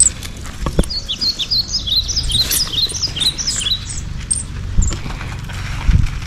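Birds chirping: a quick run of short, high, falling chirps in the first half, over a low rumbling background, with a few sharp knocks.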